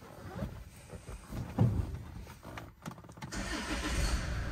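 Land Rover Freelander 2's 2.2-litre diesel engine being started: a thump about a second and a half in, then the engine cranks and fires about three seconds in and settles into a steady idle.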